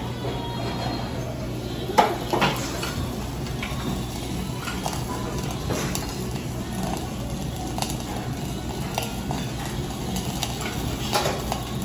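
Hibachi chef's metal utensils clinking and tapping on a steel teppanyaki griddle, a handful of sharp clinks over a steady low hum, the loudest about two seconds in and a few more near the end.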